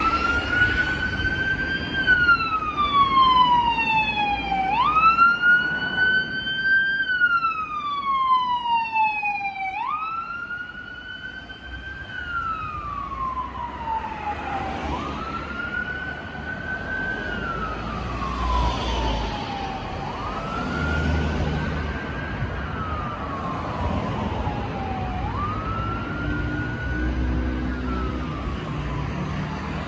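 Fire engine siren wailing, each cycle jumping quickly up in pitch and then sliding slowly down, repeating about every five seconds. Loud at first, it turns fainter after about ten seconds, over a low engine rumble.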